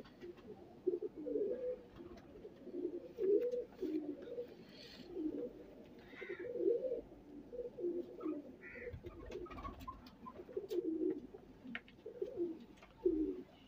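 Domestic pigeons cooing over and over, low warbling coos coming about once a second, with a few faint clicks between them.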